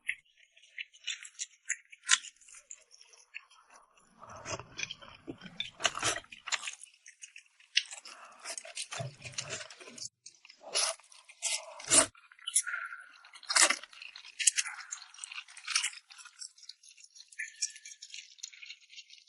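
A person eating close to the microphone: irregular chewing and crunching with wet mouth clicks and smacks, in uneven bursts with short pauses.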